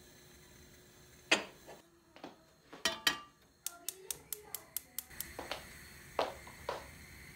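Kitchen handling sounds: a few sharp knocks and clatters, then a quick run of about nine clicks, after which a steady hiss starts, with a few more knocks over it.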